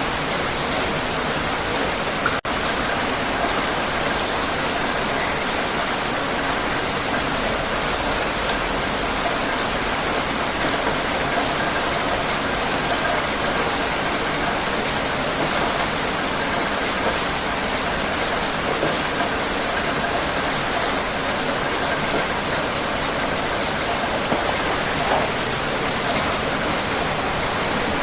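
Heavy rain falling steadily, a dense, even hiss of countless drops, broken once by a split-second dropout about two seconds in.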